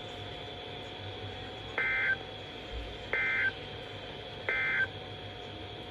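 Three short bursts of EAS SAME digital data tones, the end-of-message code that closes a weather radio alert, about 1.3 seconds apart, over faint radio hiss.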